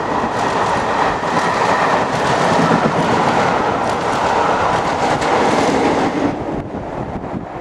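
Passenger train rushing past at speed: coaches rolling by with wheels clattering over the track, the trailing Class 47 diesel locomotive going by last. The noise drops away sharply about six seconds in as the train clears.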